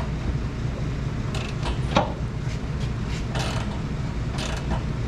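Wrench tightening a subframe-connector bolt into a nylon lock nut under the car: short metallic creaks and clicks, with one sharper knock about two seconds in, over a steady low hum.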